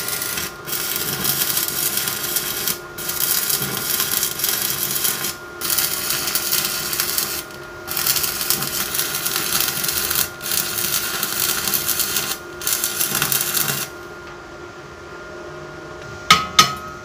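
Stick (MMA) welding arc from a Wintech mini MIG/stick inverter welder, burning a larger electrode at raised amperage on thick steel plate. It is a steady crackling hiss that breaks off briefly about every two to three seconds and stops about fourteen seconds in. A few sharp metal taps follow near the end.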